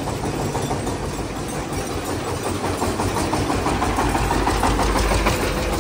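Engine of a loaded sand-delivery vehicle running as it is driven slowly forward into place. It gets louder and deeper from about four seconds in.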